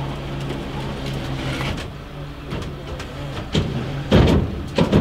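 Flatbed tow truck's engine idling steadily, with a few loud clunks in the second half as the truck is worked.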